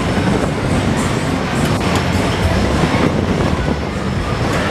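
Disco Train funfair ride in motion: its linked cars running fast round the track with a steady low rumble, and music playing along with it.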